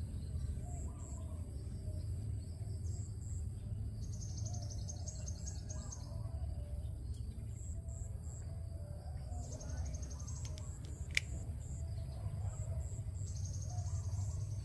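Tropical waterside ambience: insects trilling in three spells, about 4, 9.5 and 13 seconds in, over repeated short high chirps and a steady low rumble. A single sharp click about eleven seconds in.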